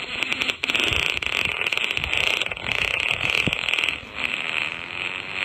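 Fart sound effect called 'Slow-mo blow' played from a fart soundboard: a long, drawn-out fluttering rattle with a couple of short lulls.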